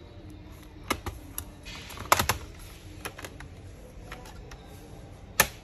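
Scattered sharp plastic clicks and snaps as a pry tool works the snap clips of an HP Pavilion 15-AU103TX laptop's case loose. There is a short scrape and a quick cluster of clicks about two seconds in, and the loudest single snap comes near the end.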